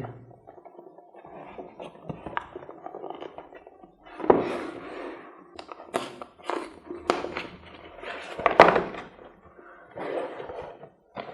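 A cardboard product box being opened and handled: rustling and scraping, with several sharp knocks and clicks.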